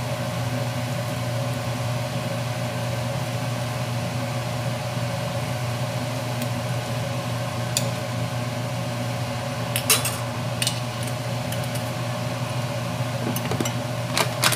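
A steady mechanical hum runs throughout. From about eight seconds in, a metal ladle stirs a stainless-steel soup pot and clinks against it a few times, loudest around ten seconds in and again near the end.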